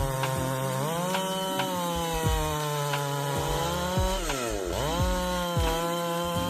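Chainsaw engine running at high revs while cutting through an oak trunk. Its pitch dips sharply and recovers about four and a half seconds in.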